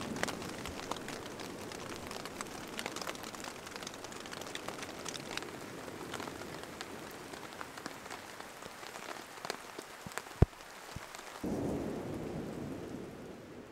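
Rain pattering on an MSR backpacking tent's rainfly: a steady hiss of drops with many small sharp ticks. About ten seconds in comes one loud sharp tap, and soon after a steadier, lower rushing sound takes over.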